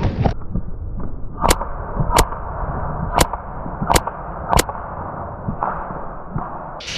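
Five sharp airsoft gun shots, spaced a little under a second apart, over a dull, muffled background.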